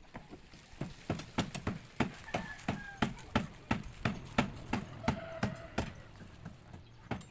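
Repeated hammer blows on timber, about three a second, nailing the wooden formwork of a concrete column.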